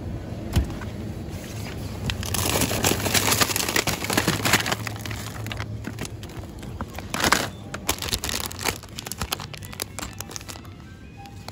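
Plastic food packaging crinkling and rustling in the hand as a frozen-food bag is taken out and a packet of pancake mix is picked up, in bursts and then rapid crackles near the end, over a low steady hum. A single knock about half a second in.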